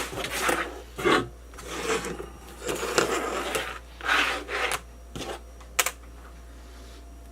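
Packaging and parts being handled: irregular rustling, rubbing and light clattering with short taps. It ends with a sharp click about six seconds in.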